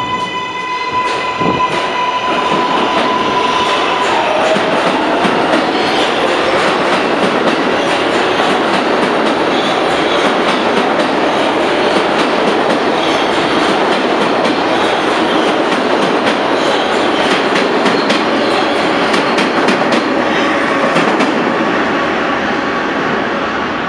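New York City subway train accelerating out of the station. The AC traction motors whine in a high steady tone that drops in pitch about four seconds in, under a growing rumble and a rapid clickety-clack of wheels over the rail joints as the cars run past.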